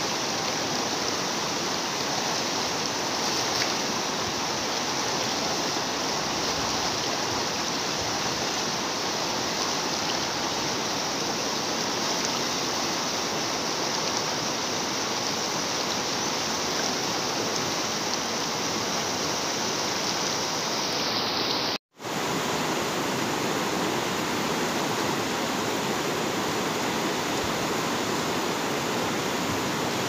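Swollen river rushing over rocks and through rapids: a steady, even rush of water that cuts out for an instant about two-thirds of the way through.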